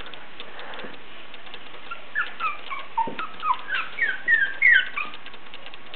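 Three-week-old basenji puppies whimpering: a rapid run of short, high squeaks and whines that slide up and down in pitch, starting about two seconds in.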